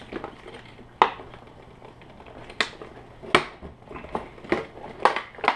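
Sharp plastic clicks and knocks at irregular spacing, about half a dozen, as a radio-control transmitter is worked loose from its molded plastic packaging tray.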